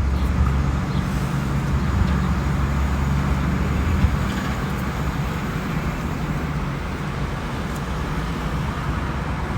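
Steady motor-vehicle rumble and road noise, with a low engine hum that is strongest for the first four seconds and then eases.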